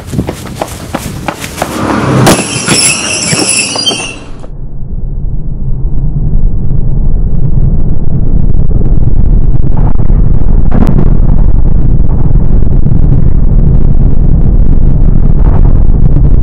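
Clattering knocks and a high squeal that cuts off about four seconds in, then the steady low rumble of a bus running along the road, heard from inside, growing louder and holding level.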